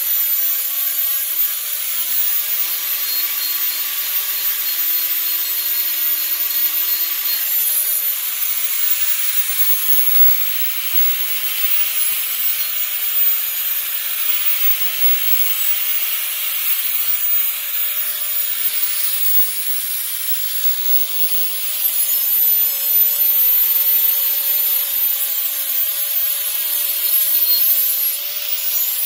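Lidl Parkside electric grinder running steadily with its motor whine, its abrasive grinding the edge of a steel weeding-hoe head in a continuous harsh hiss. It gets a little louder about two-thirds of the way through.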